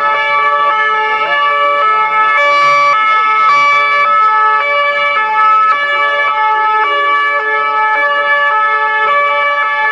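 French police two-tone sirens on CRS riot-police vans sounding together, each stepping back and forth between two notes so the tones overlap.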